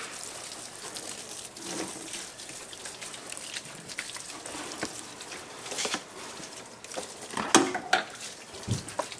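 Water spraying and hissing from a hole in a garden hose chewed through by rabbits, with a few knocks near the end.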